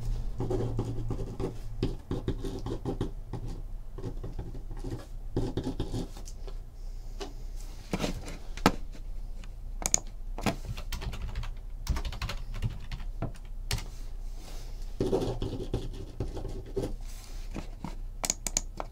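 Irregular light clicks and scratching from hands working at a desk, with taps on a computer keyboard.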